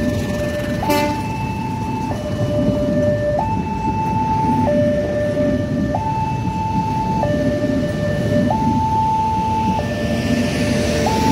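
Railway level-crossing alarm sounding its two-tone warning, a higher and a lower tone taking turns about every 1.3 seconds, over the steady rumble of a passenger train's coaches rolling over the crossing. A single sharp clack about a second in.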